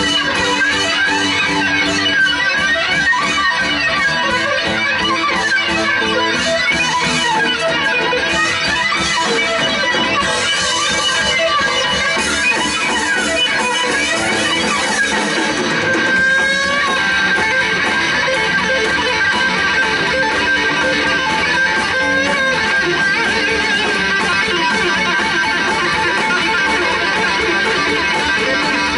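Live instrumental rock band music led by electric guitar, dense and swirling with many gliding notes. A long held high note comes in a little past halfway and sustains to the end.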